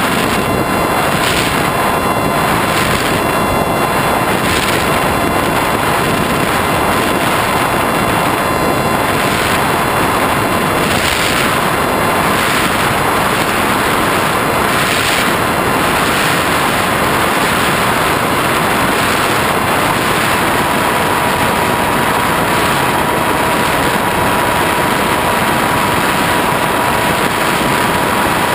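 Motor and propeller of an FPV flying wing in flight, a steady whine over loud wind rush on the onboard camera's microphone.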